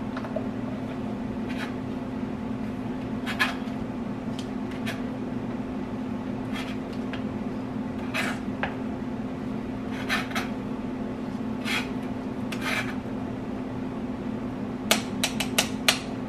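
Metal spoon scraping and clicking against a fine mesh strainer as blended beans are pressed through, in separate strokes a second or two apart, then a quick run of clicks near the end. A steady low hum runs underneath.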